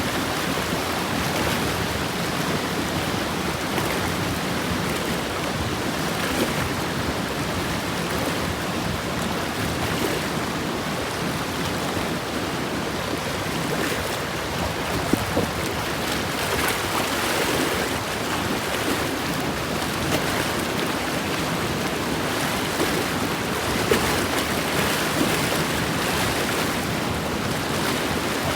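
Steady rush of river water from the Richelieu River, an even wash without pauses.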